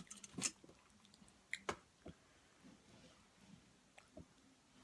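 Close-miked chewing of a burrito bowl, with a few soft mouth clicks and wet smacks.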